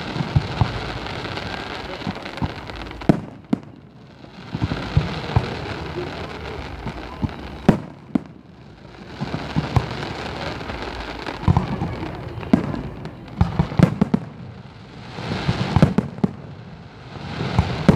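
Aerial firework shells bursting in a display: repeated sharp bangs, several in quick succession near the end, over a dense hissing crackle from the glittering stars that swells and fades in waves every few seconds.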